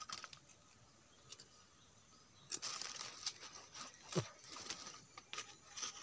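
Dry leaves rustling and thin wire being bent and handled while a snare loop is set, a few faint clicks at first, then a denser run of scratchy rustles and clicks from about midway.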